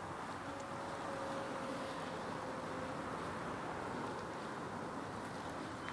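Steady outdoor background noise, an even low hiss with no clear single source, with a faint steady hum for about two seconds in the first half.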